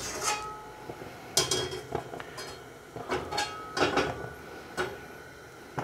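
Hammered carbon steel wok knocking and scraping against the metal wok ring and grate of a gas hob as it is tilted and turned over the flame during seasoning. There are about a dozen irregular clinks, each ringing briefly.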